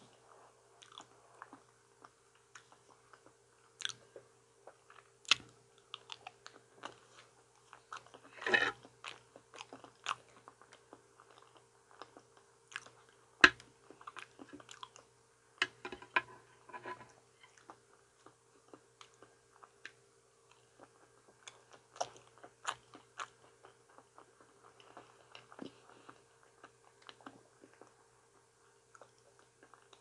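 Close-up mouth sounds of someone biting and chewing ripe banana: irregular wet clicks and smacks, with the loudest bites about eight and a half and thirteen and a half seconds in. A faint steady hum runs underneath.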